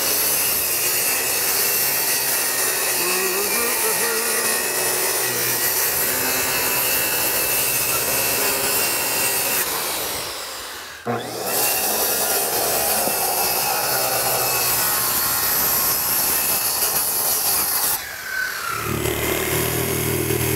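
DeWalt circular saw cutting through OSB wall sheathing, running steadily along the cut line. It stops briefly about halfway, then cuts again. Near the end it gives way to a lower-pitched noise.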